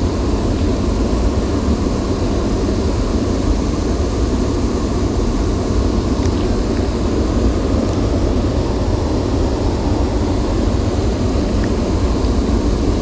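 Steady wind rumble buffeting the microphone: a dense low roar with a fainter hiss above it.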